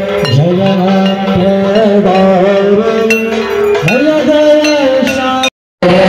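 Devotional aarti music: a voice singing a held, wavering melody over instruments, with metallic clinking. It cuts out completely for a moment near the end.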